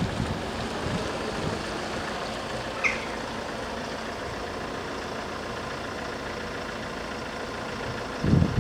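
Steady outdoor wind-and-traffic noise, with a brief high chirp about three seconds in; near the end a loud low vehicle rumble sets in suddenly.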